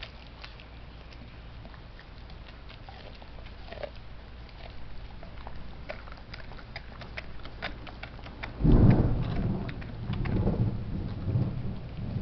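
A dog chewing and crunching on a raw pork trotter: scattered sharp cracks and clicks. About eight and a half seconds in, a loud low rumble starts and comes and goes in waves.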